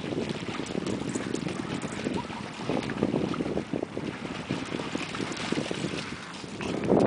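Wind buffeting the microphone on the shore, with two dogs splashing through shallow sea water. The sound grows louder near the end as the dogs run out of the water onto the wet tidal flat.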